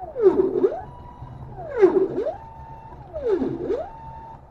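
Stepper motors of a 3D-printed robot arm whining as the arm moves under button control. The whine comes three times, each one sweeping down in pitch and back up, with a faint steady tone between the moves.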